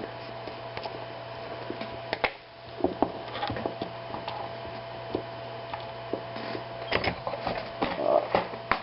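Small metal clicks and light scrapes of a mortise lock cylinder being taken apart by hand, scattered and irregular, over a steady faint hum.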